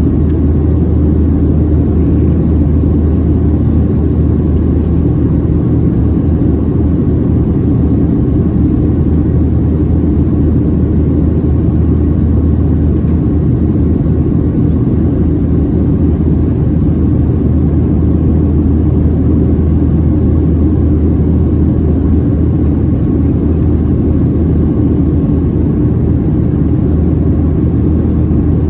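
Steady cabin noise inside a Boeing 737-700 in flight: a low, even rumble from its CFM56-7B jet engines and the airflow over the fuselage, with no change in level.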